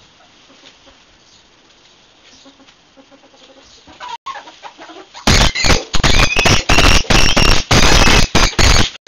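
Two ferrets fighting, a hob attacking a jill: very loud, shrill squealing and screeching starts suddenly about five seconds in and goes on in rapid, broken spurts, after a quiet start.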